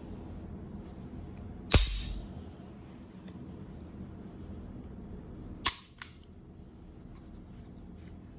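Two sharp metallic clacks from the Tisas Zigana T 9mm pistol about four seconds apart, the second followed by a lighter click.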